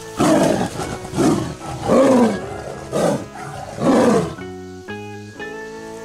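A tiger calling five times about a second apart, each call loud and short, rising then falling in pitch, over background guitar music.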